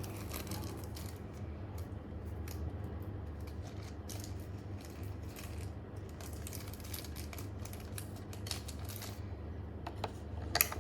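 Small metal balls clicking against magnets and a plastic track as they are set in place, a scatter of light irregular clicks with a sharper pair near the end.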